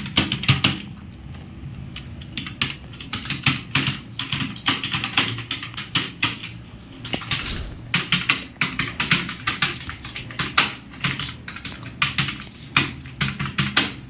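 Fast typing on a computer keyboard: key clicks in quick, irregular runs, thinning out briefly about a second in before picking up again.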